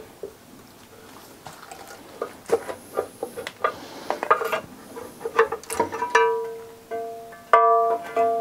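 Plucked-string background music with repeated notes, coming in clearly about six seconds in. Before and under it, light metal clicks and knocks from a pry bar working the timing-chain cover off the aluminium engine block.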